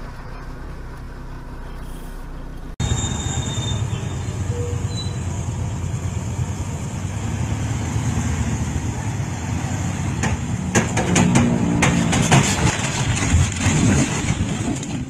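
Steady low rumble of a truck and road noise, then from about ten seconds in a run of loud crashing and clattering as a truck's load of logs tips over and spills onto the road.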